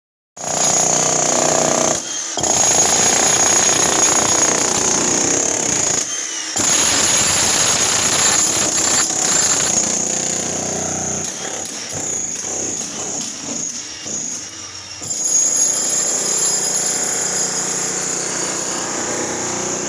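Electric demolition hammer breaking up a concrete slab, running hard with two short pauses about 2 and 6 seconds in, then more unevenly later on.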